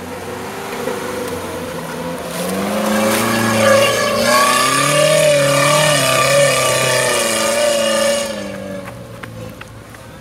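Suzuki Jimny 4x4's engine revving hard under load as it climbs a steep dirt slope, growing louder with its pitch wavering on the throttle, then dropping away about eight seconds in. A few crunches of dry leaves underfoot follow near the end.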